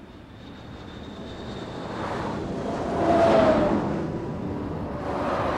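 Jet airliner passing low overhead: the engine noise swells to a peak about three seconds in, with a falling whine, then eases off.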